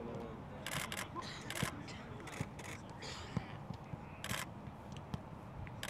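Camera shutters firing in several short rapid bursts, with a few dull thuds of footballs being kicked and faint voices in the background.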